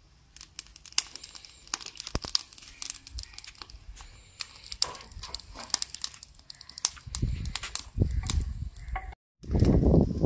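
Chopped onions frying in hot oil in a clay pot over a wood fire, stirred with a wooden spoon: irregular crackles and pops. From about seven seconds in, a low rumbling noise joins them, growing louder after a brief dropout near the end.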